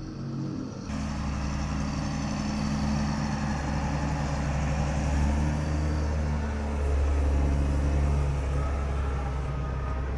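Diesel engine of a New Holland W190 wheel loader running close by, a steady low drone with a few held engine tones that shift slightly in pitch. It starts suddenly about a second in and is loudest in the second half.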